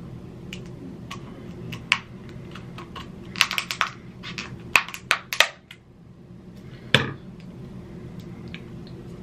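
Kitchen scissors snipping and cracking through the hard shell of a cooked king crab claw: irregular sharp clicks and crunches, thickest around the middle, with one louder click about seven seconds in.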